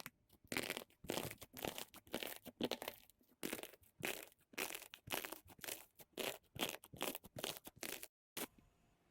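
Faint, irregular rustling and crunching noises, short scuffs about one or two a second with quiet gaps between.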